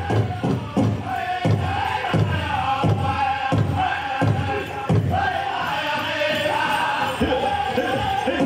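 Powwow drum group playing a chicken dance song: a steady beat on the big drum under a chorus of high-pitched chanting voices.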